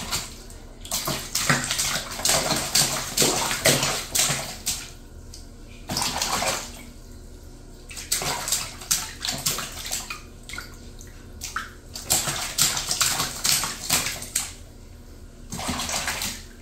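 A baby splashing bathwater with her hands in a small plastic baby bath: bursts of quick slaps and splashes with short pauses between.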